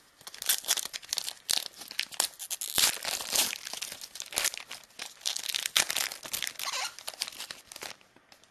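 Foil trading-card pack wrapper being torn open and crinkled by hand, an irregular run of crackles and rips that dies away near the end.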